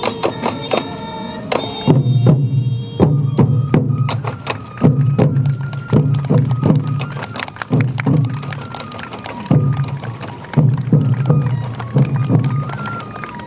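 Sansa odori festival music: taiko drums struck in a rhythmic pattern under a bamboo flute (fue) melody.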